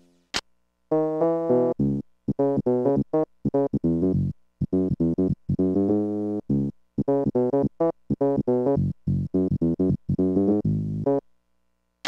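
Casio SA-10 mini keyboard playing a quick phrase of short, detached notes in one of its preset tones, each note cutting off abruptly. A single click comes about half a second in, before the notes begin.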